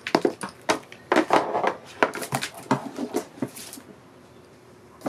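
Handling noises as a power cord and its adapter are lifted out of a cardboard box tray and set down: a busy run of rustles and light knocks, easing off for the last second or so.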